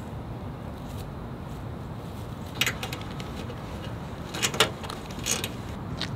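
Handling noises as a bow is fastened to a mailbox: three short bursts of clicking and rustling, the loudest about four and a half seconds in, over a steady low background noise.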